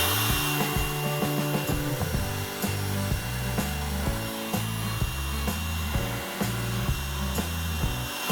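Background music with a stepping bass line, over the steady high whine of a small electric motor running throughout.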